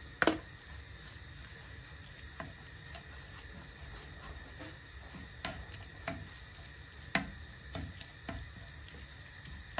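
Minced meat sizzling faintly in hot oil in a nonstick pan, while a wooden spatula knocks and scrapes against the pan several times as the meat is spread out. The sharpest knock comes just after the start.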